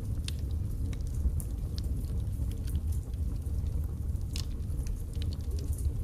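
Firewood burning in a fireplace: a steady low rumble of flames with irregular crackles and pops from the logs, the sharpest pops about a third of a second in and just after four seconds in.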